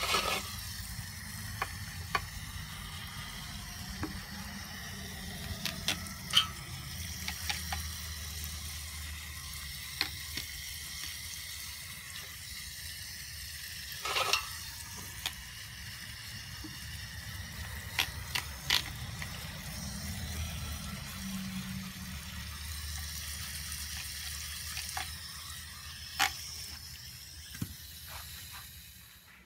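A small brush scrubbing lapping compound off the reel blades and bedknife of a Toro GreensMaster Flex 21 reel mower: a steady scratchy hiss with scattered sharp clicks as the bristles and blades catch.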